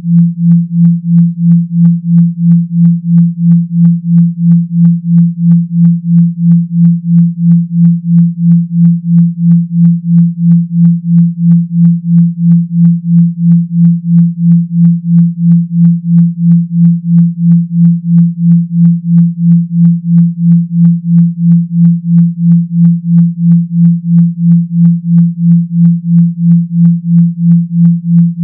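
Synthesised 170 Hz humming tone pulsing on and off a little over twice a second, a buzz-like low hum of the kind played through a phone speaker to shake water out of it.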